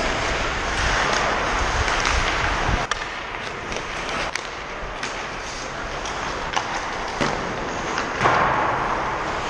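Ice hockey play: skate blades scraping and carving on the ice, with sharp clicks of sticks and puck several times from about three seconds in. A low rumble fills the first few seconds and stops abruptly.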